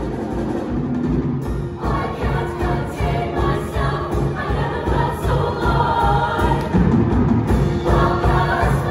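Show choir singing a pop-style number over instrumental accompaniment with a steady beat; the voices swell about two seconds in.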